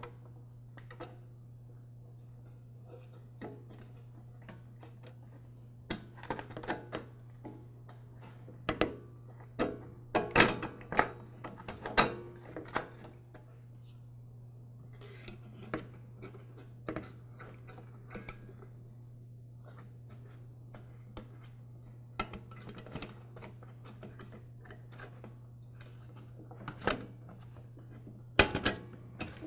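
Scattered clicks and clinks of a gasket and a plastic air filter base being handled and slid onto a lawn mower carburetor's metal mounting studs, in irregular clusters, over a steady low hum.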